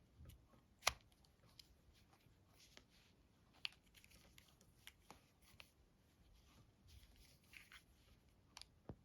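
Near silence with a few scattered faint clicks and taps, the sharpest about a second in.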